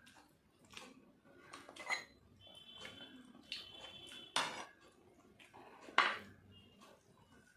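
A small metal bowl of dal clinks against the plate and table as it is picked up, poured out and set back down: several sharp clinks, the loudest about six seconds in, with the bowl briefly ringing in between.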